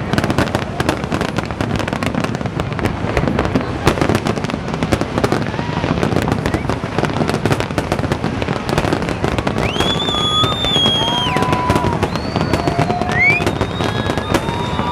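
Fireworks going off in a dense, continuous crackle of rapid pops. In the second half, high whistling tones sound over the crackle, one rising in pitch.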